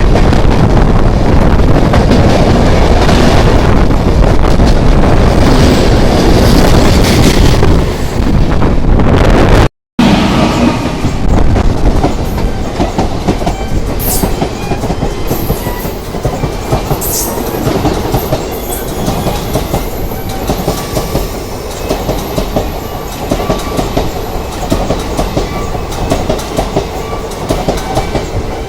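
Passenger train coaches passing close by at speed: a loud rush of wheels and air that breaks off briefly about ten seconds in. After the break comes a steady clickety-clack of wheels over rail joints, with a few faint high wheel squeals.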